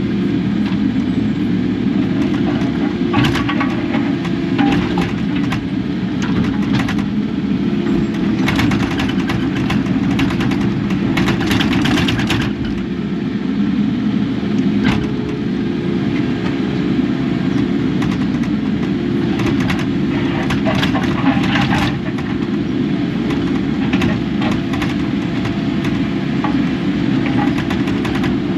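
Kubota KX080 excavator's diesel engine running steadily under load, with spells of metallic clanking and rattling about three seconds in, from about eight to twelve seconds, and again around twenty seconds.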